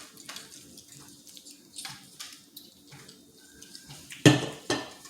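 Light clatter of dishes and cutlery at a meal: scattered soft knocks, with a louder clatter twice near the end.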